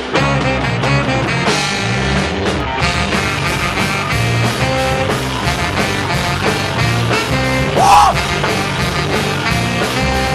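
A band playing a song through, with a steady beat and no words sung. About eight seconds in, a brief loud note slides up and back down.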